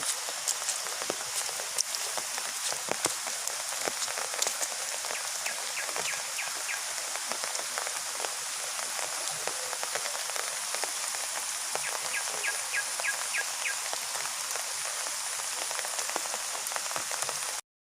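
Heavy rain falling steadily, with many individual drops pattering and clicking. Twice a short run of rapid, evenly spaced chirps sounds over the rain. The sound cuts off suddenly near the end.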